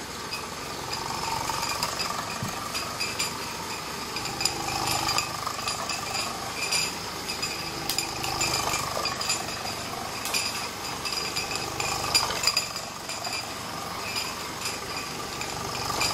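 Mamod toy steam roller running fast under steam across a tiled floor: clattering and clinking from its small steam engine and metal rollers. Behind it runs the steady noise of a kitchen extractor fan.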